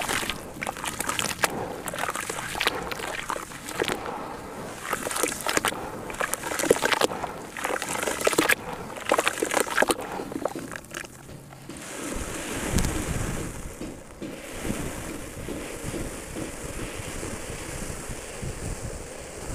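Hands squelching and sloshing a wet, gritty grey sand slurry in a basin, with irregular wet crackles and splashes. After about ten seconds this settles into a softer, steady hiss with a low rumble.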